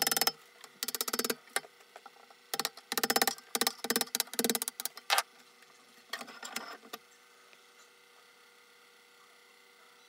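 Bevel-edged chisel paring black cherry wood clamped in a bench vise: a series of short scraping cuts, the last about five seconds in. A fainter scrape follows near seven seconds, then only a faint steady hum.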